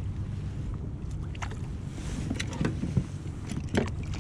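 Sounds of a kayak on the water: a steady low wind-and-water rumble with a few short, light knocks and clicks scattered through it.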